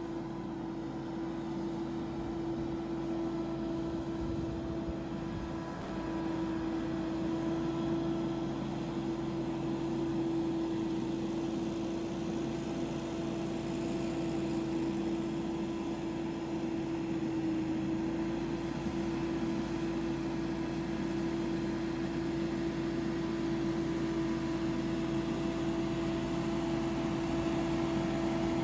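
Billy Goat P2000 walk-behind leaf blower running steadily: an engine-and-fan drone with one strong steady pitch, growing gradually louder as the blower comes closer.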